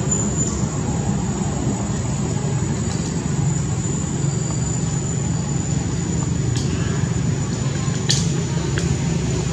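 A steady low mechanical hum, like a motor or engine running at a constant speed, with a thin steady high whine above it and a few faint clicks.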